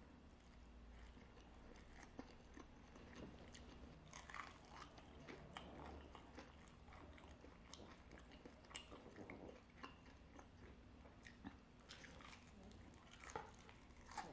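Faint mouth sounds of a person eating: chewing instant fried noodles, then biting into and chewing fried chicken, with scattered small crunches and smacks.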